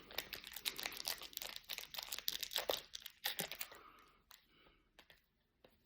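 Trading cards and their pack wrapper being handled: a quick run of crinkles, rustles and clicks for about three and a half seconds, then a few scattered clicks.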